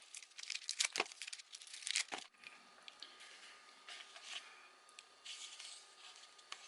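Waxed Tootsie Roll wrappers being torn and unwrapped by hand: crackly crinkling and tearing, loudest in the first two seconds, then fainter intermittent rustling.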